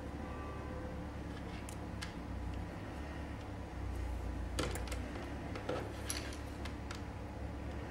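Light scattered clicks and taps from small wires and connector parts being handled, over a low steady hum.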